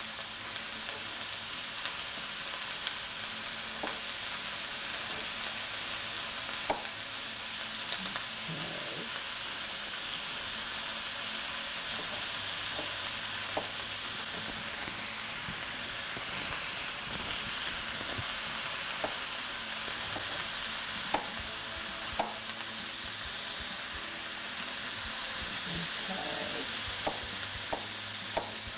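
Diced bell peppers, red onion and tomatoes sizzling steadily in a stainless steel skillet as they fry in oil, with a few scattered light knocks of a knife on a cutting board as tomatoes are diced.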